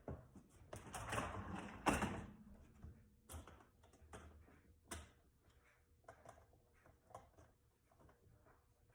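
A dishwasher being opened and its rack pulled out: a rattling slide in the first two seconds that ends in a sharp knock, then scattered small clicks and knocks of handling inside the machine.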